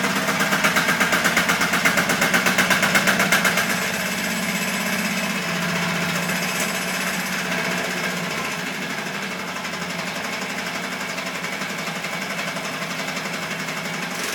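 Diesel engine of an MF 70 two-wheel tractor with a sprayer rig running with a fast, even beat. It is loudest at first, then gets quieter about four seconds in and runs on steadily.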